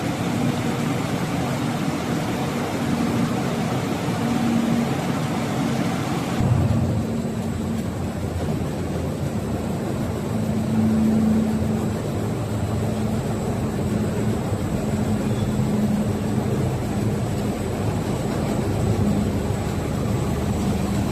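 Glass tempering furnace machinery running, a steady mechanical hum with a tone near 200 Hz. A loud hiss over it cuts off abruptly about six seconds in, leaving the lower hum.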